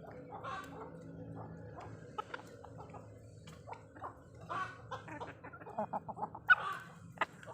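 Domestic chickens clucking as they feed, with short calls and sharp clicks that come thicker in the second half; the loudest call is about six and a half seconds in.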